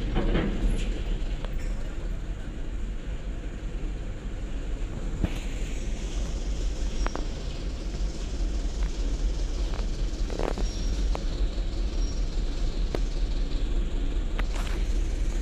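Steady low rumble of vehicle engines as vehicles creep onto a ferry's enclosed car deck, with a few sharp clanks and knocks along the way.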